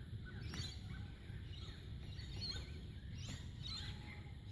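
Birds chirping and calling: many short, quick notes that sweep up and down in pitch, over a steady low outdoor rumble.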